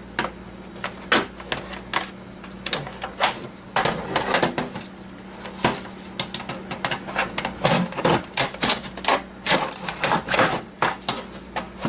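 Plastic shell of an old electronic device being pried apart by hand: irregular clicks, knocks and snaps as the hidden catches give way.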